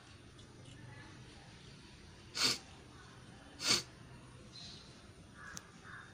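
A cat eating biscuit crumbs off concrete makes two short, loud, hissing bursts a little over a second apart.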